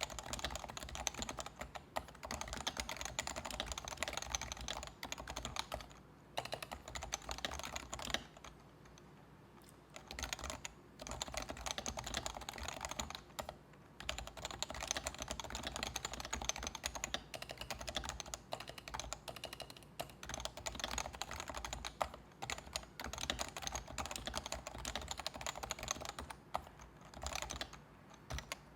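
Typing on a Leopold FC660C keyboard with Topre electro-capacitive switches, lubed stabilizers and PBT keycaps. Fast, continuous keystrokes with a few short breaks, the longest about two seconds, starting around eight seconds in.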